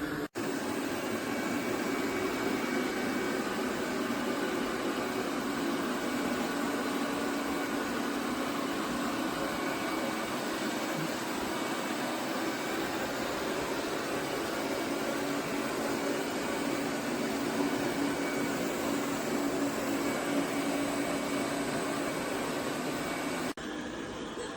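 eufy RoboVac 11S Max robot vacuum running, a steady whirring suction noise with a low hum and a faint high whine, briefly dropping out just after the start and again near the end.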